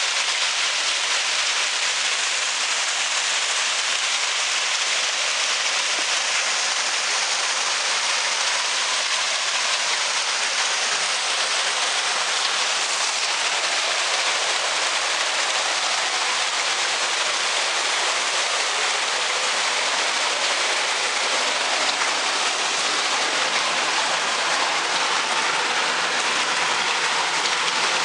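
Stormwater pouring out of drain outlet pipes and splashing into a gross pollutant trap pit, with turbulent flow running through the trap's bar screen: a steady rushing splash of falling and flowing water.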